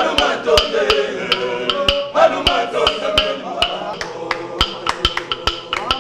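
Congolese gospel choir music: voices singing over a sharp, steady click beat, about three clicks a second.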